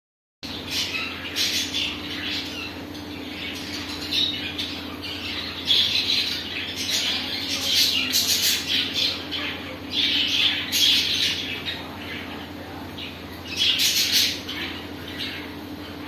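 Budgerigar calling in short, rapid high-pitched bursts that come in irregular clusters every few seconds, over a steady low hum.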